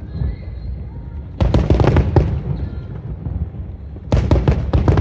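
Fireworks bursting overhead in rapid volleys: a dense cluster of bangs about a second and a half in and another near the end, with low rumbling echoes between them.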